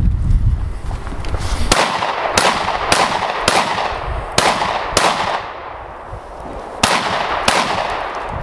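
Semi-automatic 12-gauge shotgun fired about eight times in quick pairs and short strings, each shot with an echoing tail. The strings come from a practical-shooting course of fire, and the first shot follows a low rumble in the first couple of seconds.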